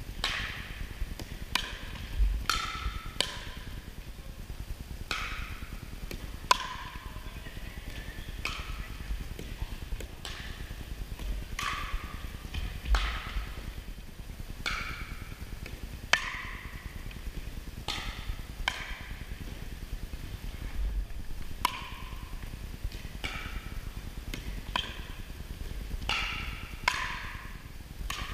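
Pickleball rallies: paddles striking the hollow plastic ball in a series of sharp pocks, about one every second or so with a few short gaps, each hit echoing in the gym.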